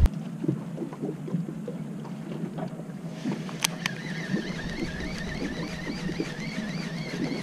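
Fishing boat's engine running with a steady low hum. About three seconds in a warbling high whine joins it, and a sharp click sounds just after.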